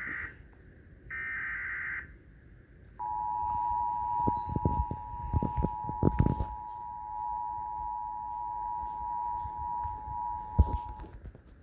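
The last of the Emergency Alert System's SAME digital header bursts, a short buzzing data squeal, ends about two seconds in. After a pause of about a second, the EAS two-tone attention signal (853 and 960 Hz sounded together) plays steadily for about eight seconds, heralding a severe thunderstorm warning. A few low thumps sound underneath the tone.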